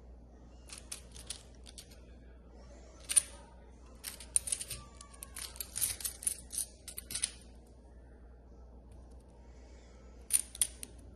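Mini magnetic building cubes clicking and clacking as they are handled and snapped together. The clicks are sharp and scattered, with a quick run of them in the middle and a pair near the end.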